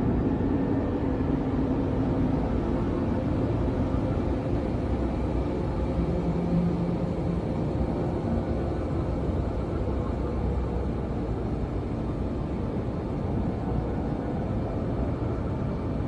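A low, steady rumbling drone from a dark horror ambience, with a few faint held tones above it, easing off slightly over the stretch.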